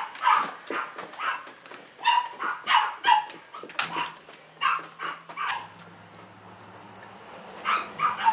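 Cavalier King Charles Spaniel puppy yapping in a string of short, high-pitched barks. The barks pause for about a second and a half, then a few more come near the end.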